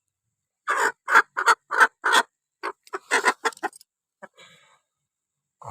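Aseel hen clucking: a quick run of about a dozen short, loud calls over some three seconds, trailing off into a few faint ones.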